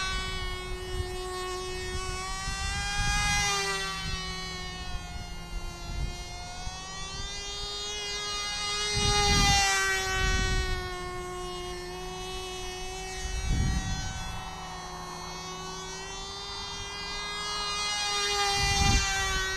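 Cox TD .010 two-stroke glow engine on a small radio-control plane, a high-pitched buzz in flight. It swells louder and softer several times with slight shifts in pitch as the plane passes. Brief low rumbles of wind on the microphone come in now and then.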